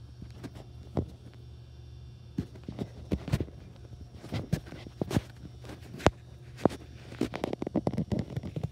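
Irregular soft knocks and thumps in uneven clusters over a steady low hum, with the sharpest knock about six seconds in.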